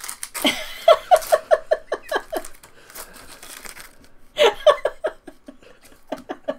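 Laughter: a quick run of rhythmic ha-ha pulses about a second in, then two shorter bursts of laughing later on. Some faint crinkling of a card-pack wrapper comes near the start.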